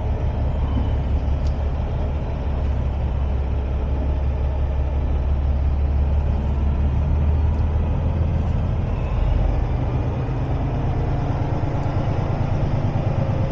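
Semi truck's diesel engine running at low speed: a steady low rumble whose pitch shifts about nine seconds in.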